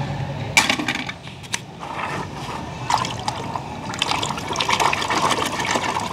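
Water splashing in a tub as a hand plunges in and churns murky water, with a sharp splash about half a second in and steady sloshing and splashing near the end.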